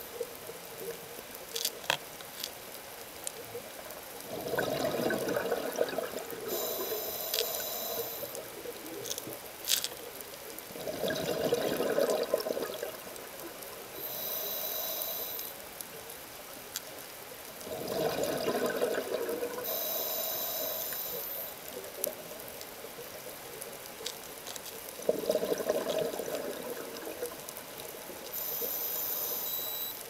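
A scuba diver's breathing through a regulator underwater: four rushes of exhaled bubbles about seven seconds apart, each followed by the hiss of an inhale through the regulator. A few sharp clicks come in between.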